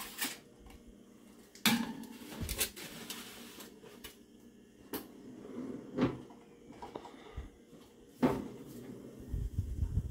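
Metal clanks and knocks of an electric oven's wire rack and door being handled while a foil-lined baking tray is slid onto the rack. There are several sharp knocks a second or two apart, with quieter rattling between them.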